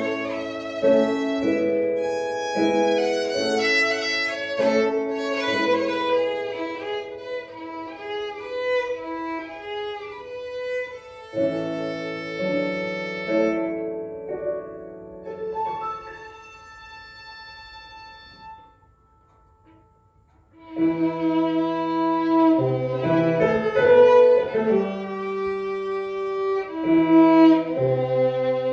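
Solo violin played with Roland digital piano accompaniment. About halfway through, the violin drops out and the last piano notes ring and fade to a brief near-silence. Violin and piano then start again together a few seconds later.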